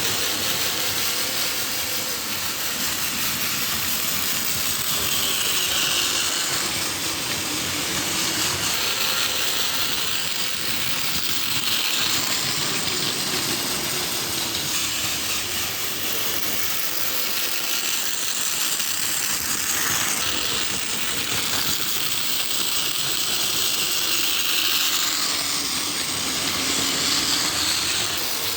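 Plarail D51 toy steam locomotive, modified to run on 9-volt power, whirring steadily as its motor and gears drive it around plastic track with coaches in tow. The sound swells and fades every few seconds.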